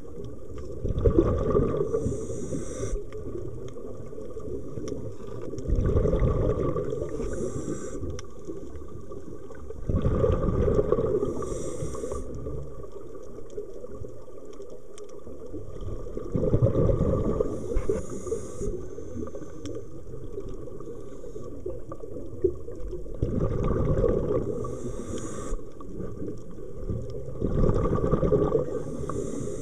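Scuba diver breathing through a regulator underwater: a short hiss on each inhalation alternates with a longer rumble of exhaled bubbles, one breath every five to six seconds.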